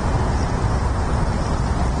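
Steady low rumbling outdoor noise with no distinct events, of the kind made by wind on an outdoor microphone or distant road traffic.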